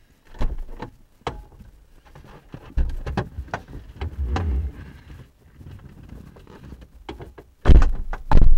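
Clicks, knocks and low thuds from inside a parked car as its occupants move about. Near the end come two loud thumps, about a second apart, typical of a car door being shut.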